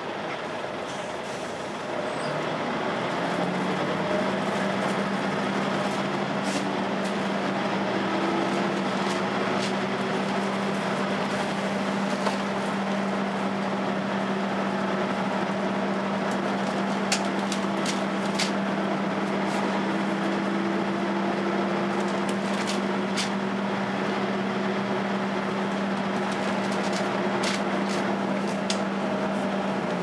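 Volvo B10BLE bus's engine cooling fan hoovering: a steady vacuum-cleaner-like drone that comes in about two seconds in and holds until it stops right at the end. Under it the engine runs, with a few light clicks, heard from inside the bus.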